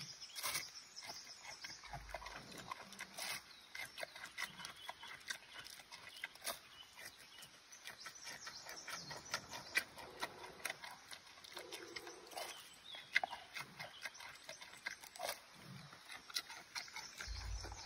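Giant panda biting and chewing a fresh bamboo shoot: irregular crisp crunches and snaps as it eats.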